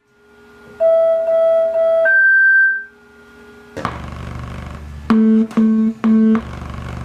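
Synthesizer music: held keyboard notes, with a higher note taking over about two seconds in. About four seconds in a deep low hit lands, followed by short repeated chords about twice a second.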